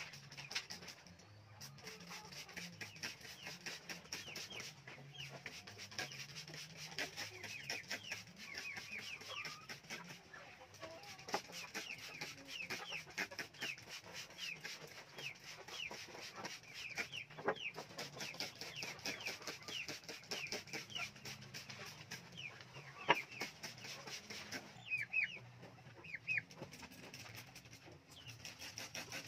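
A flock of young hens clucking and cheeping, with many short, high, falling peeps in quick succession over low clucking. A few sharp clicks stand out, the loudest about three-quarters of the way through.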